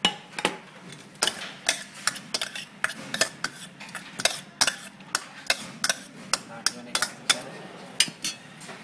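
Steel ladle stirring sweet corn kernels in a metal bowl, clinking sharply against the bowl in quick, irregular strokes, several a second.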